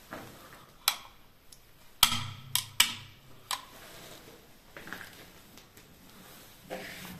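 A few sharp clicks and knocks, about five in the first three and a half seconds, the second one with a short low thud under it.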